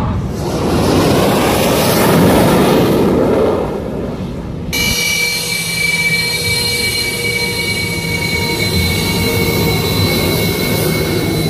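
Jet engine roar for the first four seconds or so. Then, after an abrupt change, a Sukhoi Su-30MKI fighter's twin turbofans run on the ground, with a steady high-pitched whine of several tones over a low rumble.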